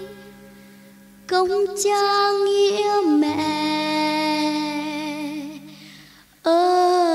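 A high voice singing long held notes with vibrato over soft accompaniment. The music drops away for the first second or so and again briefly about six seconds in, then the voice comes back on a new note.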